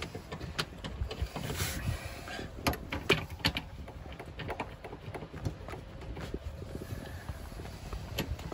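Scattered small clicks and knocks of seat-mounting bolts being placed by hand into the front seat runners, with faint rustling in between.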